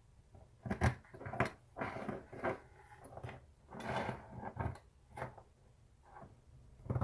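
Hand tools being handled on a workbench while marking out a metal flat bar: irregular clicks and knocks, with a couple of short scraping sounds about two and four seconds in.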